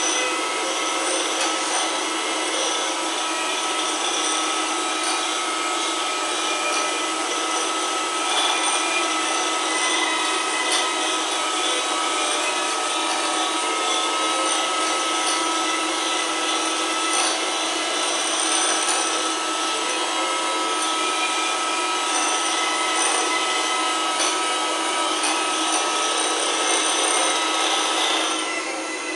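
Electric hand mixer with conventional four-blade beaters running steadily on its low speed setting, whipping a thin layer of egg white in a glass bowl. It switches off near the end.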